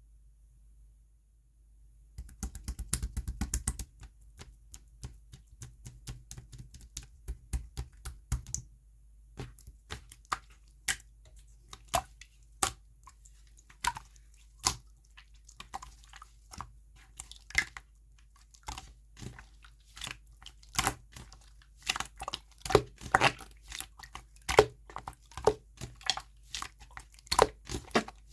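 Clear slime being squished and stretched by hand, giving irregular sticky clicks and pops, with a dense crackling flurry about two seconds in.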